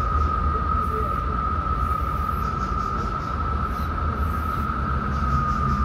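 Aerosol spray-paint can hissing in several short bursts as paint goes onto the van's side panel. A constant steady high whine and a low rumble run underneath.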